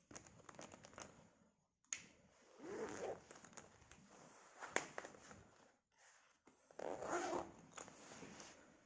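Several short bursts of scratchy rustling and scraping close to the microphone, with one sharp click about five seconds in.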